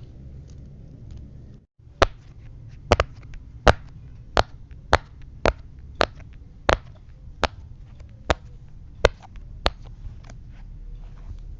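Silicone pop-it fidget toy having its bubbles pressed one by one: about a dozen sharp pops, roughly one every two-thirds of a second, starting about two seconds in and stopping near the end.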